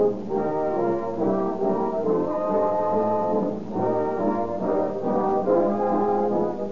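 Orchestral music led by brass, with horns and trombones playing sustained chords that change about every half second to a second.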